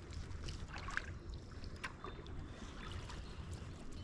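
Water lapping against the hull of a drifting boat, with a few small splashes and clicks over a low, steady rumble of wind and moving water.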